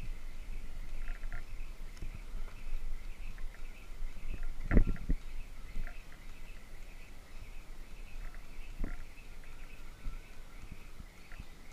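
Medicine ball thudding against a corrugated steel shed wall in wall-ball throws: a loud hit about five seconds in and a smaller one near nine seconds. Steady high chirping runs in the background.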